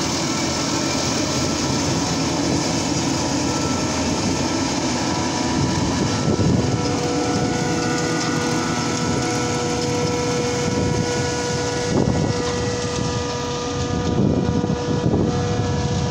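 Claas self-propelled forage harvester and a tractor with its trailer running steadily while cutting and chopping maize: a continuous heavy engine drone with a steady whining tone, swelling louder a few times.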